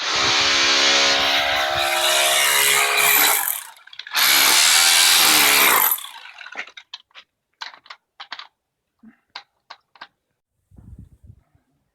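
Electric power tool running in two bursts, about three and a half seconds and then about two seconds, its motor pitch sinking under load. Scattered light knocks and clicks follow.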